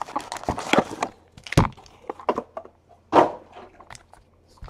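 Cardboard trading-card box being opened and handled: a string of light taps, clicks and scrapes, with louder thumps about one and a half seconds in and again about three seconds in.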